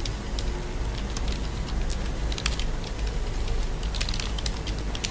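Computer keyboard typing: irregular key clicks over a steady low hum.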